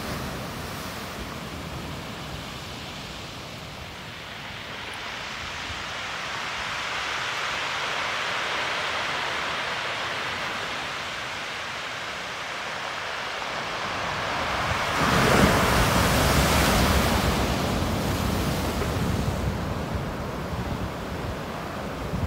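Waves breaking and washing up a shore: a steady rushing hiss that swells and fades. About two thirds of the way through, a gust of wind buffets the microphone with a low rumble for a few seconds, the loudest part.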